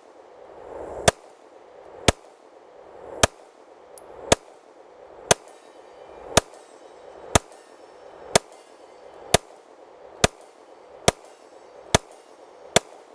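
Girsan MC-28 9mm striker-fired pistol fired slowly with 123-grain NATO-spec ammunition: thirteen single shots about one a second, coming a little quicker near the end.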